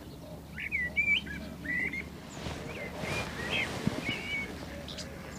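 A songbird singing a run of short, varied whistled notes. A brief rustle comes about three seconds in and a sharp tap just before four seconds.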